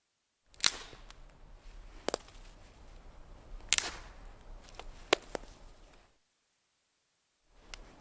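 A series of sharp twig snaps: about five crisp cracks over some five seconds, with light crackling of wood fibres between them, then a pause and another snap near the end.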